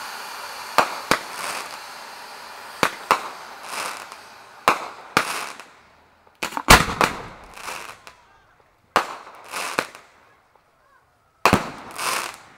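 Fireworks display: aerial shells bursting in a series of sharp bangs, some in quick pairs, each trailing off in a brief rush of noise. The loudest bang comes about two-thirds of the way through.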